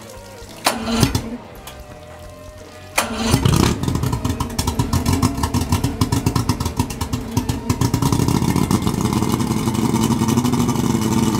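1992 Yamaha 150 V6 two-stroke outboard being started on flush muffs: a brief crank about a second in, then it cranks again and catches about three seconds in. It runs with rapid, uneven firing at first and settles into a steadier run after a few more seconds, on test after new thermostats for an overheating fault.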